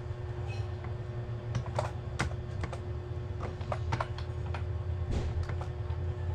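Computer keyboard typing: irregular, uneven key clicks over a steady low hum.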